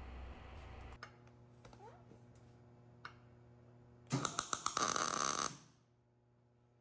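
Wire-feed welder arc crackling for about a second and a half as a tack weld is laid, fixing a steel oxygen-sensor bushing to a steel exhaust adapter. Before it come a few faint clicks.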